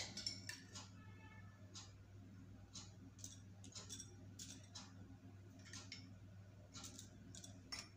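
Faint, scattered light clicks and taps of a spoon against glass bowls as chopped onion is spooned onto puffed rice, over a low steady hum.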